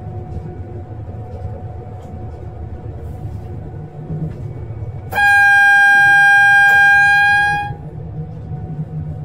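Train horn sounding one long blast of about two and a half seconds on a single high tone, starting about five seconds in, over the steady low rumble of the train running.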